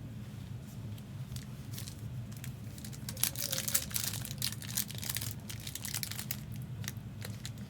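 Trading card pack wrapper crinkling and crackling as it is worked open by hand, a string of small irregular crackles over a steady low hum.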